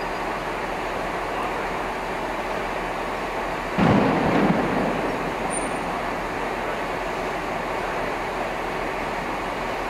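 Steady distant rumble of an approaching diesel-hauled test train, powered from the rear by a Class 37 locomotive's English Electric V12 diesel engine. A sudden loud rush about four seconds in fades over about a second.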